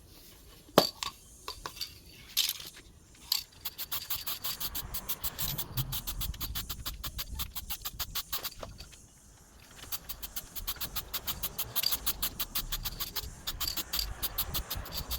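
Rapid, evenly spaced metallic clicking, many clicks a second, in two runs of several seconds with a short break between, after a few separate knocks near the start.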